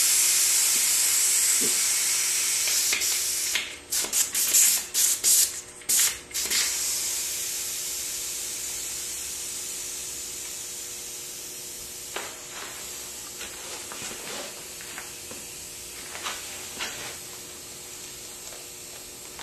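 Air hissing out of a mountain-bike tire's inner tube through its valve as the tire is deflated. The hiss slowly fades as the pressure drops, and breaks into several short spurts about four to six seconds in.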